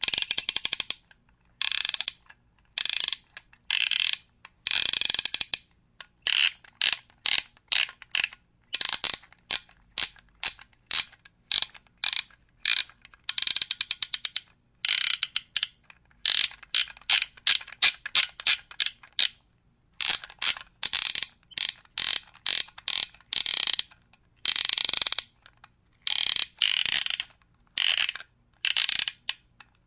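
Clockwork mechanism of a wind-up toy ratcheting in many short bursts of rapid, dense clicking, separated by brief silences.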